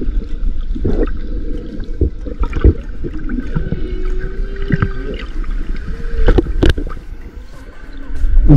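Ambient sound bed: a steady deep rumble with watery gurgling, scattered clicks, and a long drawn-out tone that glides slightly in pitch.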